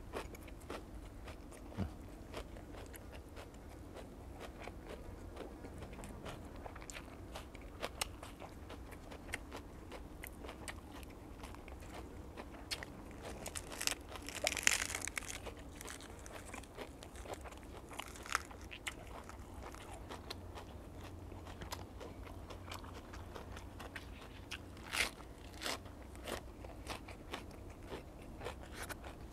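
Close-up chewing and crunching of fresh vegetables and raw beef, with many small sharp mouth clicks and smacks. About halfway through comes a short crisp rustling crunch as a lettuce leaf is folded around food.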